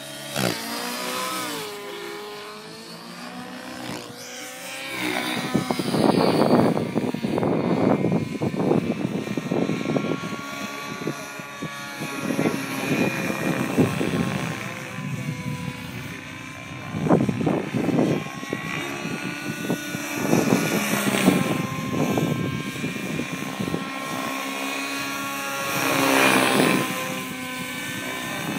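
Align T-Rex 700N nitro RC helicopter flying aerobatics: its two-stroke glow engine and rotors whine, the pitch rising and falling as the throttle and load change. Loud rushing swells come and go several times.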